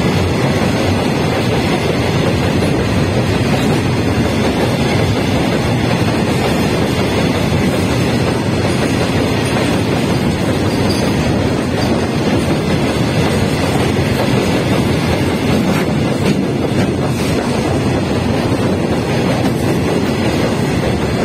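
Long goods train of open box wagons rolling past at close range on the next track: a steady, loud rumble of steel wheels on the rails.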